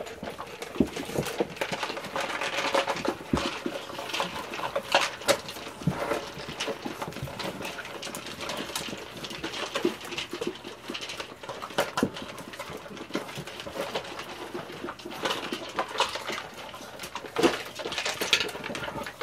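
A litter of seven-week-old puppies eating from plastic slow-feeder puzzle bowls: a busy, irregular clatter of many small sharp clicks as mouths and paws work the bowls and the bowls knock and slide on a tile floor.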